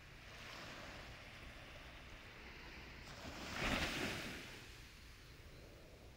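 A soft rushing noise that swells to a peak a little under four seconds in and then fades away.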